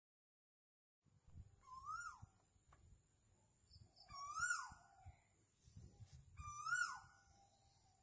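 An animal calling three times, about two seconds apart, each call a pitched note that rises and then drops sharply, over a steady high-pitched hiss.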